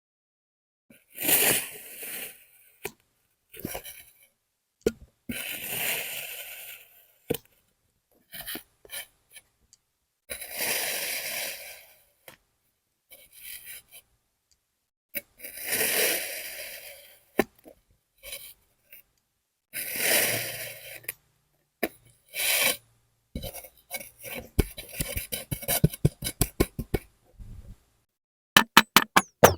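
Kinetic sand being cut and scraped through, five gritty strokes of one to two seconds each with small clicks between them. Near the end comes a quick run of clicks and taps lasting several seconds.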